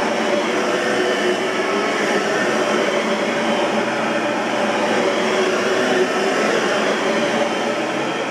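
Oreck XL21 bagged upright vacuum cleaner running, its motor holding a steady pitch and level.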